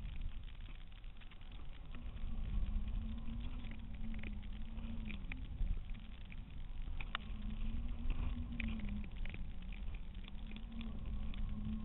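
Wind rushing over a camera mounted on a flying kite, with scattered light ticks and a low hum that rises and falls every few seconds.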